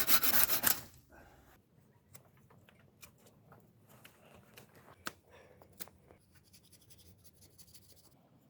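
Hand work on small parts: a loud rustling burst in the first second, then scattered light clicks and faint scraping.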